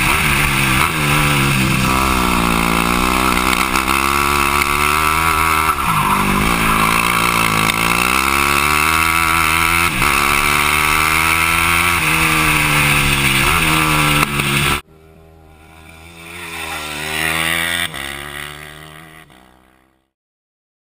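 Yamaha WR250F single-cylinder four-stroke dirt-bike engine in a go-kart, heard loud onboard, its revs rising and falling repeatedly as it accelerates and slows through corners. About fifteen seconds in the loud engine cuts off suddenly, and a kart engine is heard from trackside, growing louder as it passes and then fading away.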